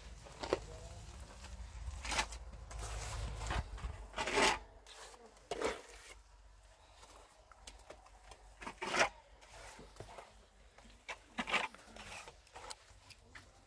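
A trowel scraping mortar into and along the joints of a cement block wall, in separate rasping strokes every second or two.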